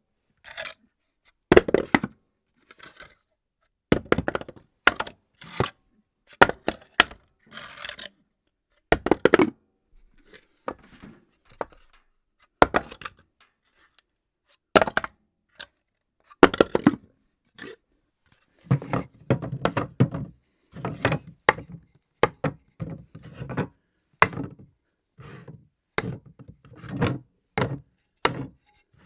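A series of objects dropped onto a hard floor, one after another: sharp thuds and knocks, some bouncing or clattering briefly before settling, with short silences between drops.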